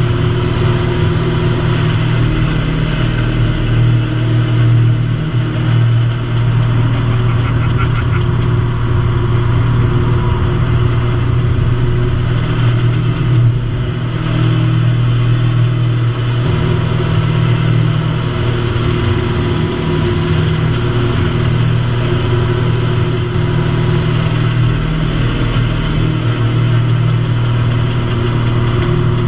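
Votec V252's piston engine and propeller droning steadily, heard from inside the cockpit, the deep note swelling briefly a few times as the aircraft manoeuvres.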